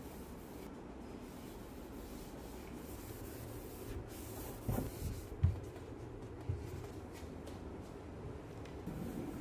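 Quiet rubbing and wiping sounds of hand cleaning, with a few soft knocks in the middle as objects are handled and set down.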